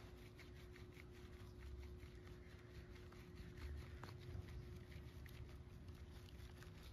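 Faint patter and soft wet rubbing as a soapy baby monkey is lathered by hand over a plastic basin of water, with a quiet steady hum underneath.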